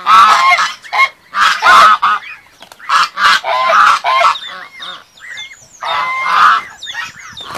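Domestic white geese honking loudly: a series of about five harsh honks.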